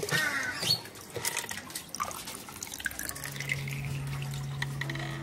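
Water dripping and trickling in a small garden water feature, with scattered light clicks. A steady low hum starts about three seconds in.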